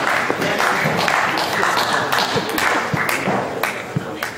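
Spectators applauding, with crowd voices mixed in, the clapping dying away near the end.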